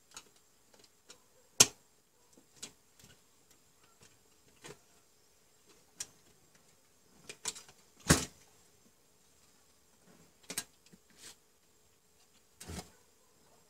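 Hands handling plastic miniature circuit breakers, wires and a screwdriver on a metal mounting plate: scattered clicks and knocks. The two loudest come about a second and a half and eight seconds in.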